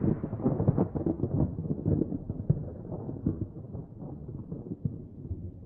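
A deep, thunder-like rumbling sound effect with crackles, dying away steadily.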